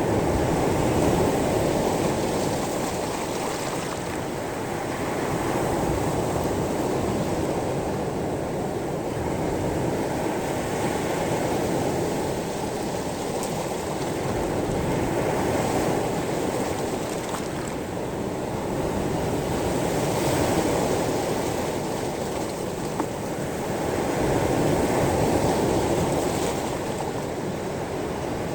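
Sea waves washing onto a pebble beach, the surf swelling and easing every four to five seconds.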